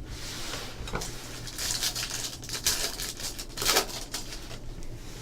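Trading-card pack wrapper crinkling as it is opened, and the cards handled: a run of crinkles and light clicks, busiest in the middle.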